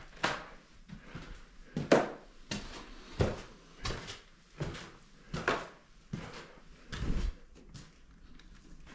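Footsteps climbing old wooden stairs, a knock on each tread about every two-thirds of a second, then a heavier low thud about seven seconds in.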